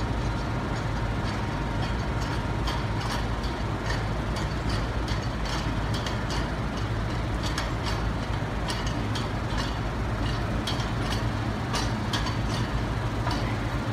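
Large floor fan running with a steady hum and rush of air, with scattered light taps over it.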